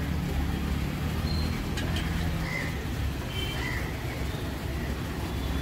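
Onion pakodas deep-frying in a large iron kadai of hot oil, a steady sizzle over a low steady rumble. A few short bird chirps come through in the middle.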